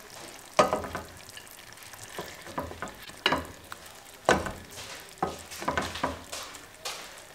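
A ladle knocking and scraping in a pan of chicken adobo as the sauce is spooned onto a plate of rice: about eight separate clinks, unevenly spaced. A faint sizzle of the simmering sauce runs underneath.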